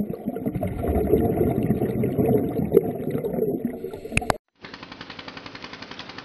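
Underwater scuba audio: dense crackling and rumbling of exhaled regulator bubbles. It cuts off about four seconds in and gives way to a rapid, even, pulsing mechanical rattle.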